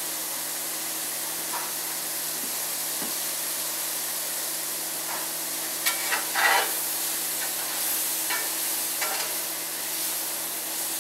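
Mushrooms sizzling in butter in a cast iron skillet. A utensil stirs them, scraping and clinking against the pan, loudest about six seconds in and a few times more near the end.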